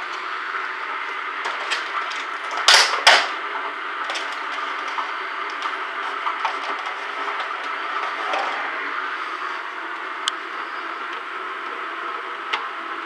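Knocks and clicks of kitchen handling over a steady hiss, with two loud sharp knocks about three seconds in and lighter clicks near the end as eggs are handled.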